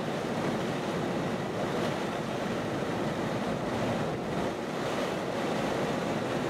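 Wind blowing across the microphone, a steady rushing noise with slight rises and falls.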